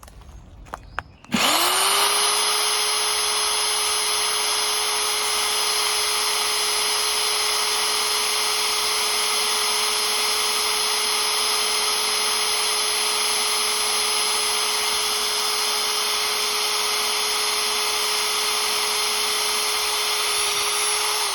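Corded electric drill starting up after a few small clicks about a second in, then running steadily at full speed as a 1/8-inch cobalt bit drills into railroad rail steel: a loud, even whine that holds without bogging down.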